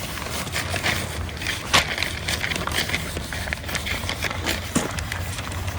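Wind buffeting the microphone as a steady low rumble, with scattered light crackles and rustles, likely from the paper being pressed onto the inked fish for a gyotaku print.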